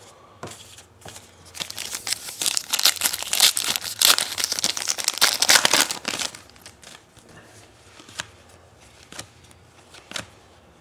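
Foil wrapper of a baseball card pack being torn open and crinkled by hand: a dense burst of crackling from about two seconds in until about six seconds, then a few light ticks as the cards are handled.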